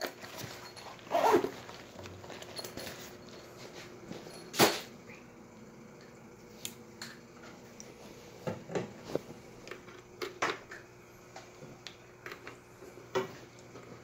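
Scattered clicks and knocks from handling the phone and a handheld battery tester, with one louder knock about four and a half seconds in, over a faint steady hum.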